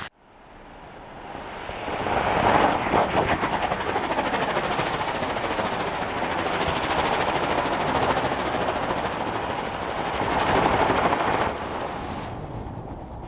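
Spinning 'airplane' firework burning: a loud, steady hiss with a faintly wavering pitch as it spins, building up over the first two seconds and dropping off about twelve seconds in.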